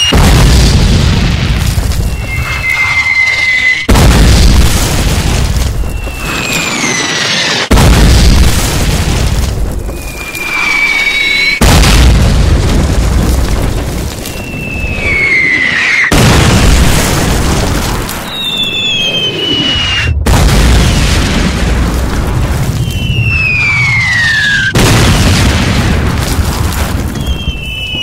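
Artillery shelling: over and over, a shell's whistle falls in pitch and is followed by a loud, deep explosion rumble, about every four seconds, with abrupt cuts between the blasts.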